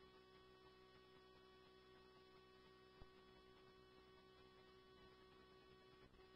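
Near silence: a faint steady hum, with one small click about three seconds in.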